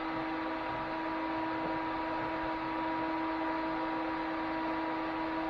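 Freshly rebuilt Chevy 4.3 V6 running steadily at a raised idle for flat-tappet cam break-in, with a steady whine held at one pitch over the engine noise.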